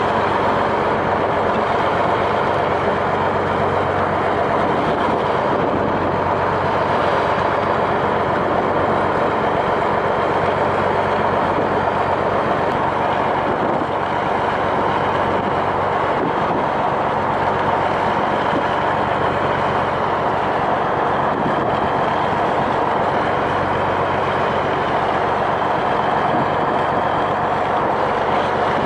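Fishing boat's engine running steadily at sea, with a constant rush of wind and water.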